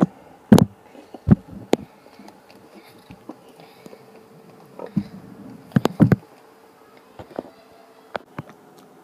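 Handling noise: a series of sharp clicks and knocks as dolls and the camera are moved. The loudest come about half a second in and in a cluster around six seconds in, over a faint steady hum.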